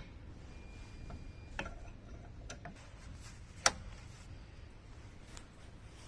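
A few sharp metal clicks and taps, spaced irregularly with the loudest about halfway through, as the pins are fitted to fasten a lift recliner's new push rod actuator.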